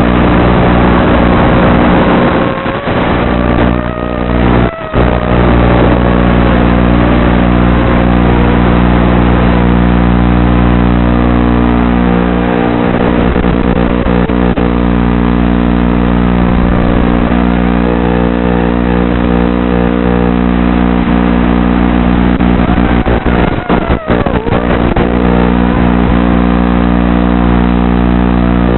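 Wizard X220 racing quadcopter's brushless motors and propellers running in flight, the whine rising and falling in pitch with throttle over a steady electrical hum. The sound drops out briefly a few seconds in and again near the end.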